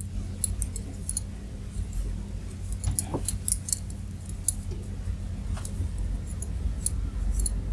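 Double-pointed knitting needles clicking and tapping lightly and irregularly against each other as stitches are worked in one-by-one rib, over a low steady hum.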